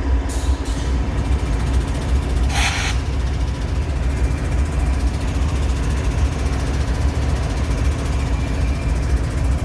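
Diesel freight locomotive engine rumbling steadily, with a short burst of air hiss about two and a half seconds in.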